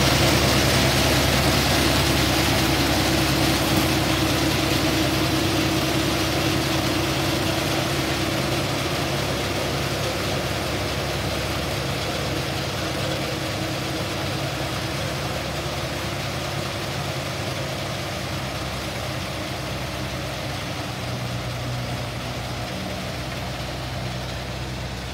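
Self-propelled peanut harvester's engine and working machinery running with a steady hum, growing gradually fainter as the machine moves away.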